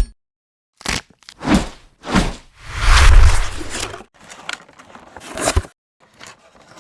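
Added unboxing sound effects: a string of short packaging sounds, crackles, scrapes and clicks, with a longer, louder swell of noise and a low thud about three seconds in.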